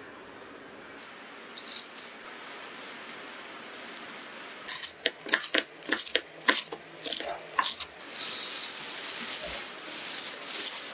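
Kitchen knife chopping fresh coriander on a wooden cutting board, a run of quick sharp chops at about three to four a second in the middle. Near the end a steady hiss takes over.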